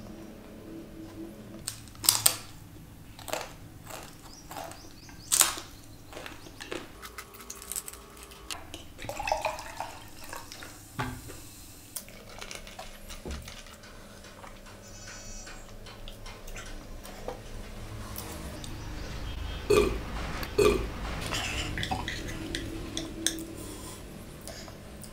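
Close-miked eating sounds: chewing a full mouthful of spicy Maggi noodles, with sharp clicks and taps scattered through, the loudest about two and five seconds in. About twenty seconds in come two short, low, louder sounds from the mouth or throat.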